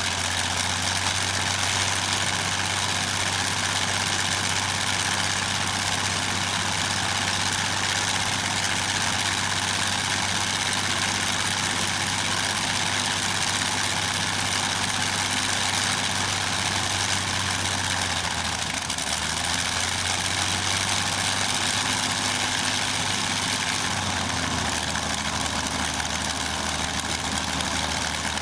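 Continental IV-1430 inverted V-12 aircraft piston engine running steadily. Its low note shifts briefly about two-thirds of the way through, then settles back.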